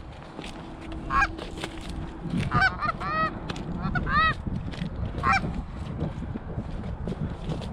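Canada geese honking: about five separate calls spread across several seconds, over a low rumble.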